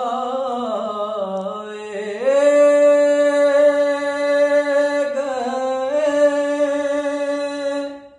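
A man singing a naat unaccompanied, with no instruments. About two seconds in his voice climbs to a high note that he holds for several seconds, dips briefly in the middle, holds again and breaks off just before the end.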